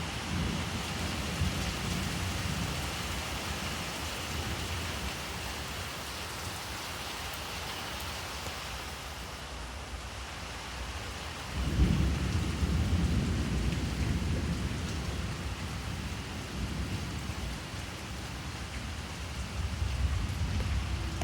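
Heavy rain falling steadily, with rolls of thunder rumbling: a sudden louder thunderclap about halfway through that rumbles away over several seconds, and more rumbling near the end.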